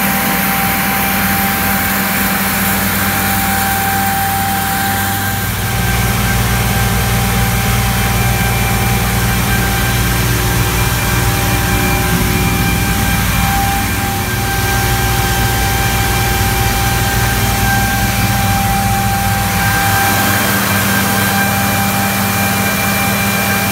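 Tractor engine running steadily while driving across a field, a constant drone with a thin steady whine over it. The low rumble grows louder about five and a half seconds in.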